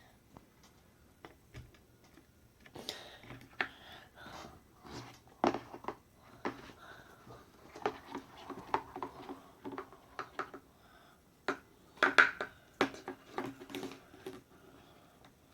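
Irregular clicks, taps and light knocks of hands handling Play-Doh, its plastic tubs and its modelling tools on a tabletop, with a denser flurry about twelve seconds in.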